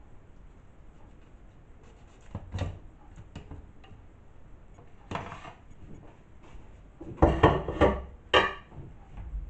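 Knocks and clatter of kitchen items being handled: a single knock about two and a half seconds in, another a little after five seconds, then a louder run of several knocks and rattles from about seven to eight and a half seconds in.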